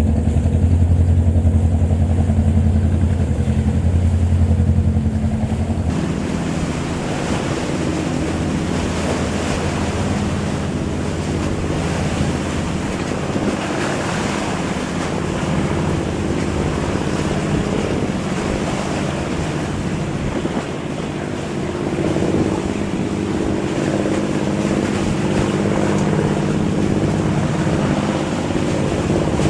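A fishing boat's engine running with a steady low hum, mixed with the wash of water and wind. About six seconds in, the sound changes abruptly to a noisier mix in which water and wind come up over the engine.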